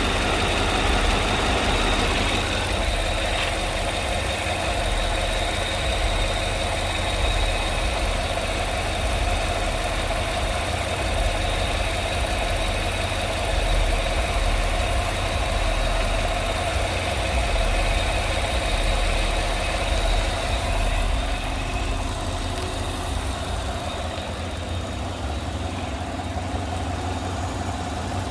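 Car engine idling steadily with its mechanical vacuum pump removed. The pump's noise had sounded like bad lifters.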